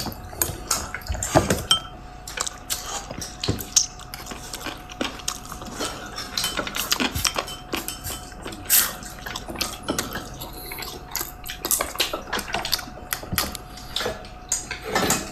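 Dishes and cutlery clinking and knocking during a meal: many small irregular clicks and taps, over a faint steady tone.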